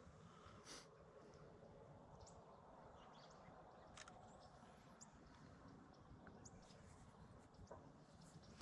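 Near silence: faint outdoor background with a few scattered soft clicks and faint high chirps.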